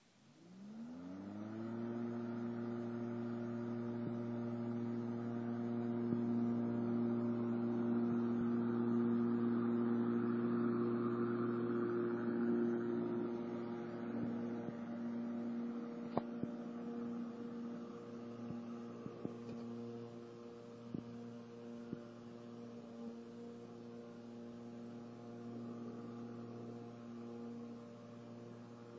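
Homemade electric lawn mower's 2 hp three-phase motor, fed from a frequency drive, starting up and spinning the blade to speed with a hum that rises in pitch over the first second or two, then running with a steady hum. A few sharp ticks come through from about halfway on.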